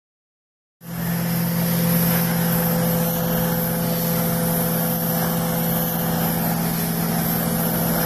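Truck-mounted carpet cleaning machine running while its extraction wand sprays and vacuums a carpet: a steady rushing hiss over a low machine drone, starting about a second in.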